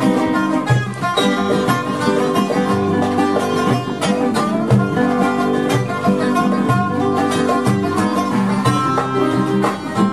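Instrumental music played on quickly plucked string instruments, running steadily at a constant level.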